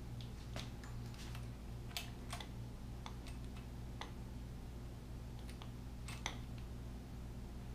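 Light, irregular metallic clicks and clinks of a timing chain and its sprockets being handled and slipped onto the cam and crank at the front of a Ford 429 big-block, over a steady low hum.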